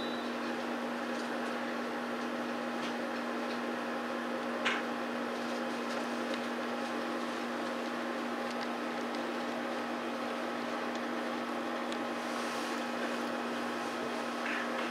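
A steady electrical hum over a constant hiss, with a faint single knock a little before halfway through.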